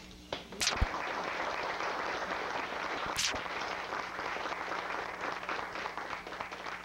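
Audience applauding, starting just under a second in and continuing steadily.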